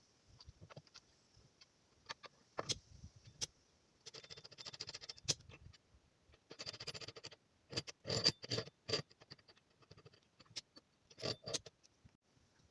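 Handling noise from hands working on the miter saw's parts during assembly: scattered clicks and taps, two stretches of scratchy scraping and rustling, and a cluster of louder knocks a little past the middle.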